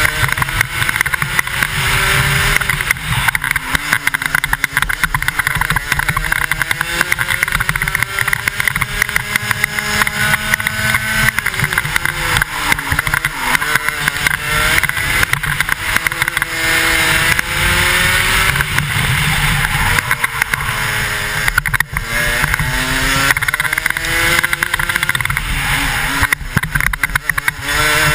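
125cc two-stroke kart engine at racing speed, its pitch climbing along the straights and falling away sharply several times when the driver lifts for the corners. Heard from the driver's helmet, with a steady rush of wind over it.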